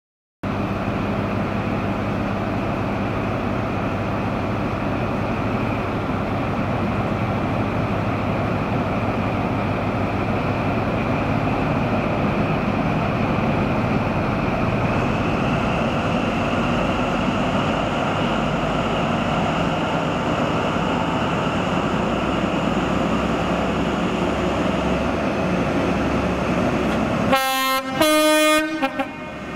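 Class 43 HST diesel power car running steadily, its engine noise with a faint whine that rises slowly from about the middle. Near the end the train's two-tone horn sounds, a short high note followed by a slightly longer low note.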